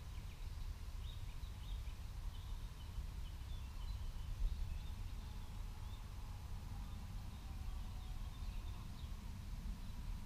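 Outdoor ambience: a low wind rumble on the microphone with faint, short bird chirps scattered through.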